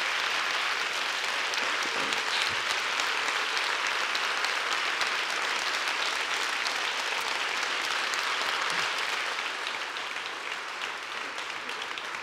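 Large audience applauding steadily, a dense clatter of many hands clapping that begins to die down near the end.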